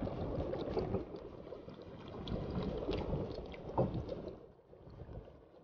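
Broth sloshing and dripping as a whole chicken is dipped into and lifted out of a pot of hot poaching liquid. It fades after about four seconds.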